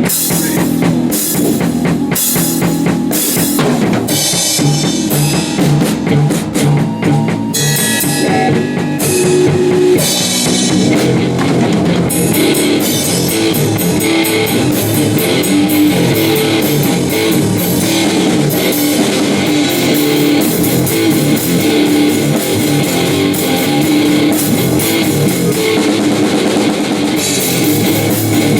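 A live rock band jamming: drum kit and electric guitar playing loud together, with the cymbals coming in stronger about twelve seconds in.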